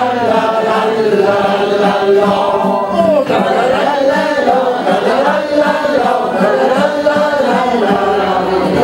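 A group of people singing together unaccompanied, many voices at once.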